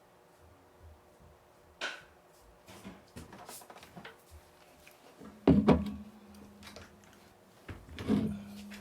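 Close-miked eating of boneless fried chicken: scattered light clicks and taps, then two louder knocks or bites about three seconds apart, each followed by a brief low hum.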